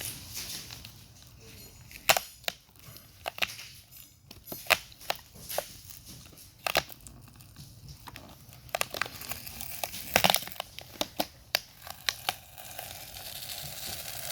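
Glue cracking and snapping as a battery's glued BMS circuit board is pried loose from the board beneath it: many irregular sharp cracks and crackles, starting about two seconds in.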